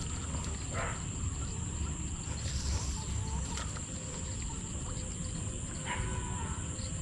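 Wind rumbling on the microphone in an open paddy field, with a steady thin high-pitched whine over it and a couple of faint brief rustles.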